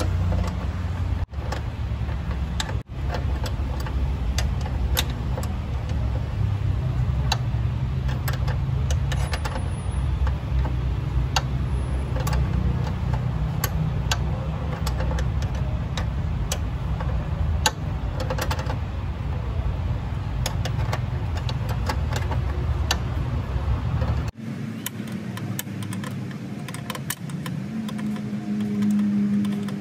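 Scattered light metallic clicks and taps of a hand tool working on the clutch master cylinder fitting, over a steady low rumble that drops away about 24 seconds in.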